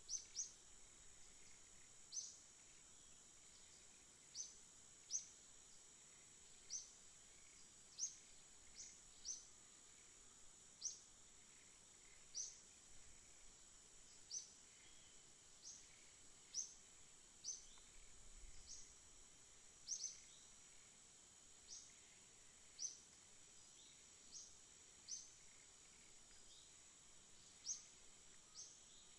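A bird repeating a single short, high chirp about once a second, over a faint steady high-pitched hiss.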